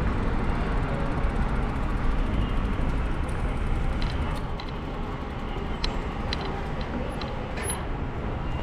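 Street ambience heard from a moving bicycle: a steady low rumble of wind and road noise with traffic, and a few faint clicks in the second half.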